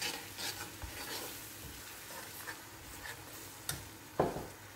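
Sauce faintly sizzling in a frying pan on low heat as a lump of butter melts into it, with a few light scrapes and ticks of a metal spoon against the pan and a brief louder noise near the end.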